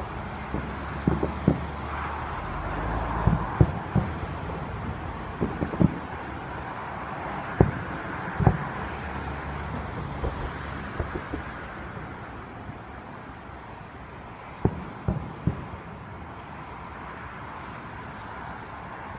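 Distant fireworks going off, heard as an irregular series of short, sharp booms, with a lull of a few seconds after the middle. Steady road traffic noise runs underneath.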